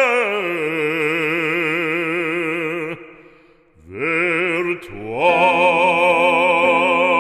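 Operatic solo voice singing a French sacred song, holding long vowel notes with wide vibrato. A note falls and is held, drops away briefly about three seconds in, then a new note rises and is held.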